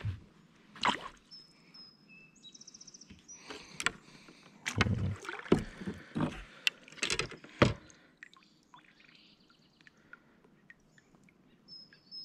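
Knocks, clicks and a few low thumps on a fishing kayak, scattered through the first eight seconds and then dying away, as a just-unhooked bass is handled and put back in the water. A songbird calls briefly about two seconds in.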